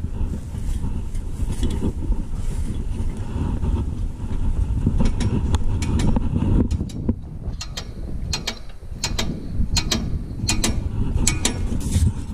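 Pressure-washer hose and rig being handled: a string of sharp, irregular mechanical clicks starting about five seconds in, over a steady low rumble of wind and movement.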